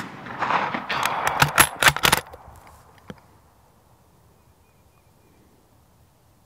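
The fading tail of a rifle shot. Then the bolt of an 11mm Mauser Model 71/84 is worked in a quick run of sharp metallic clacks, ejecting the spent case and feeding the next round from the tube magazine. A single click follows about three seconds in.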